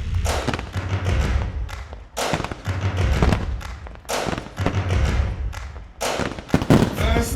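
Aerial firework shells bursting in rapid waves, deep booms with crackling tails, a new salvo about every two seconds.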